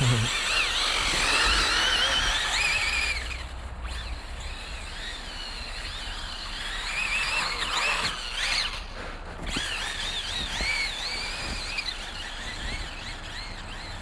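Brushless electric motor and drivetrain of a Losi 8ight-E 1/8-scale RC buggy whining, its pitch rising and falling with the throttle as the tyres spin on hard, slick snow. The whine is loudest for the first few seconds, surges again midway, then runs fainter.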